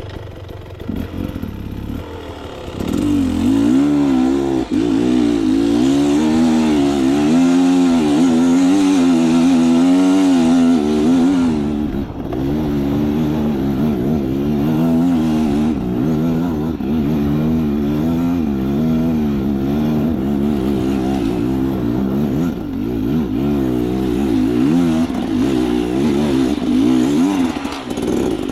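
Beta Xtrainer 300 two-stroke enduro motorcycle engine running, revved up and down over and over; it gets louder about three seconds in.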